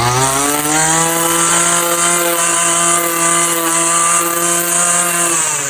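Two-stroke string trimmer engine revved to high speed, held steady for about five seconds, then dropping back toward idle near the end.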